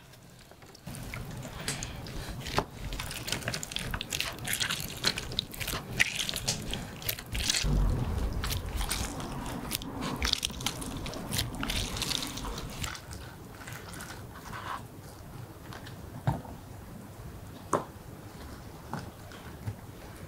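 Orange halves pressed and twisted by hand on a plastic manual citrus juicer, with wet squishing and crackling of pulp and peel against the reamer. The crackling comes thick and fast for the first dozen seconds, then thins out to a few single clicks.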